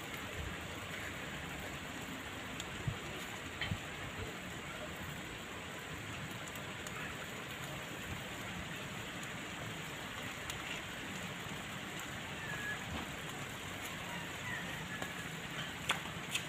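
Whole fish grilling on banana leaves over a charcoal grate, sizzling with a steady hiss and a few small crackles.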